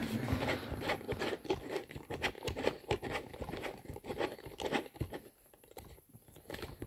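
Footsteps shuffling and crunching on a gritty concrete floor, an irregular run of scuffs and crackles that thins out and stops about five seconds in.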